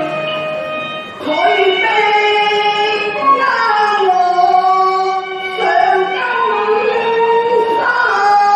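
Cantonese opera (yuequ) singing: a high voice holding long notes that slide between pitches, in phrases of two to three seconds.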